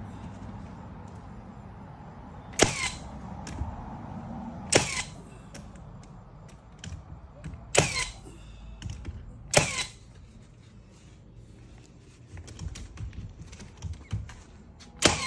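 Cordless nail gun firing nails into a wooden door frame: five sharp shots a couple of seconds apart, with a few fainter clicks between them.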